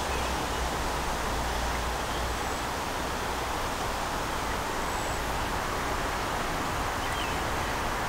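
Steady outdoor background hiss with a low rumble underneath, even and unchanging; the preening spoonbill gives no call.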